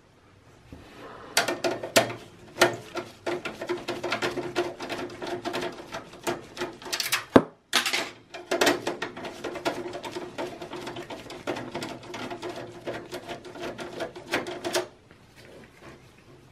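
Screwdriver backing out the two screws at the top of a desktop PC's front USB/SD card reader panel in its steel case: a steady whir with rapid metal clicking, one screw after the other, split by a sharp click and a short pause about seven and a half seconds in.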